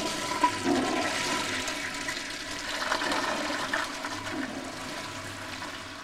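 Toilet in a restroom stall flushing: a rush of water that starts suddenly and slowly fades away.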